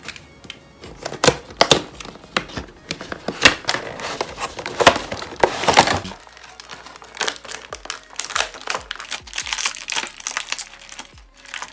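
Action figure packaging being opened by hand: a box cutter slitting the tape on the cardboard box, then the plastic blister tray and a clear plastic bag crinkling and crackling as the figure is taken out. The crackling is dense for the first half and turns to sparser, sharper crackles later.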